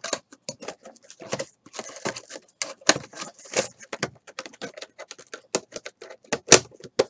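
Trading cards and their cardboard box being handled: a quick, irregular run of taps, clicks and rustles, with two sharper knocks near the end.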